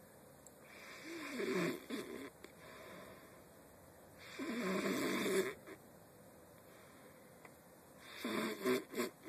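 A person snoring in sleep: three loud, rattling snores, one about every three and a half seconds.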